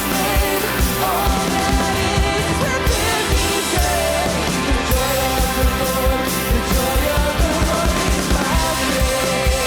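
Worship band playing a contemporary worship song, a singing voice carrying the melody over a steady drum beat.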